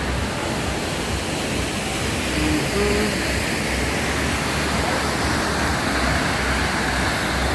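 Waterfall pouring steadily: a constant, dense rush of falling water, with the flow heavy after a lot of rain.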